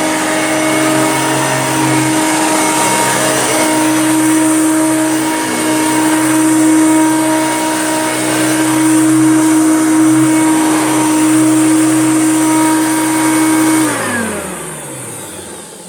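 Hoover Junior upright vacuum cleaner running with a steady motor whine. About 14 seconds in it is switched off and the whine falls in pitch as the motor spins down.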